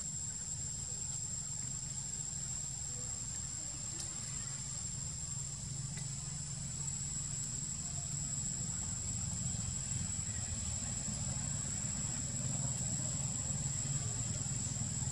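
Steady high-pitched insect drone, unbroken throughout, over a low steady rumble.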